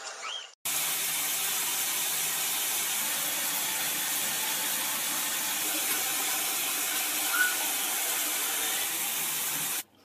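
Shower spray running: a steady hiss of falling water that starts about half a second in and cuts off just before the end. A single short squeak sounds over it near the end.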